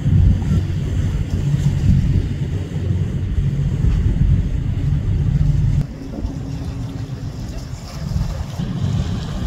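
Engines of a passing trawler-style motor yacht running with a low rumble, mixed with its wake washing and wind on the microphone. About six seconds in it cuts abruptly to the quieter rumble of a sportfishing boat under way.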